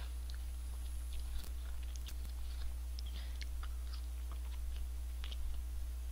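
A person chewing food close to a microphone, with scattered soft crunchy clicks, over a steady low electrical hum.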